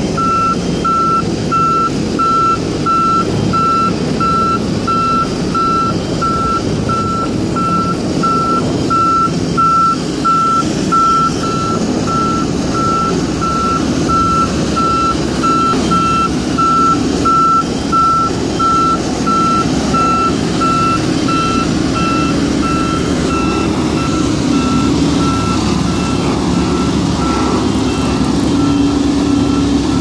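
Reversing alarm on a road roller beeping steadily, about twice a second, growing fainter over the second half. Under it the diesel engines of several single-drum rollers compacting the road base run continuously.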